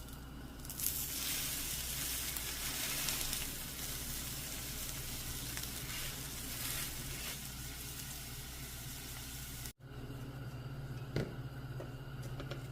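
Food sizzling and frying in a hot pan, a steady hiss that grows louder about a second in. It cuts off suddenly near the end, leaving quieter kitchen sounds with a single knock.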